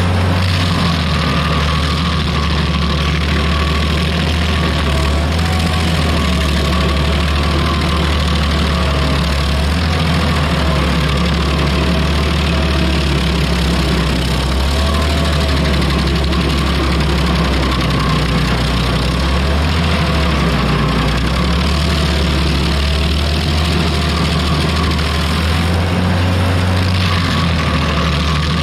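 Rayco RG50 stump grinder running under load as its toothed cutter wheel grinds into a pine stump: a steady engine tone under a dense hiss of chipping wood, its pitch wavering slightly as the wheel sweeps through the cut.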